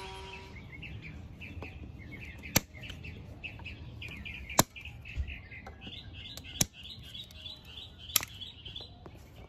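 Four sharp snips, roughly two seconds apart, of side cutters trimming the tails off plastic zip ties. Birds chirp steadily in the background.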